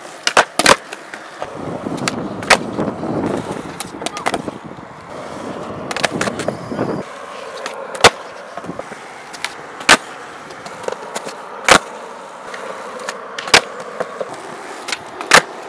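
Skateboard on smooth concrete: wheels rolling, broken by sharp pops and clacks of the board snapping and landing during flatground tricks. In the second half the clacks come about every two seconds.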